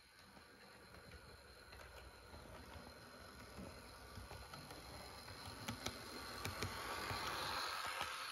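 Bachmann Daisy diesel railcar model running on the track: a faint whirr of its motor and wheels that grows louder as it comes close, loudest about seven to eight seconds in, with a few light clicks along the way.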